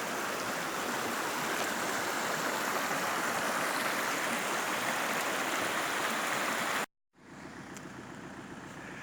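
Stream water flowing steadily. It cuts off abruptly about seven seconds in, and a much quieter outdoor hush follows.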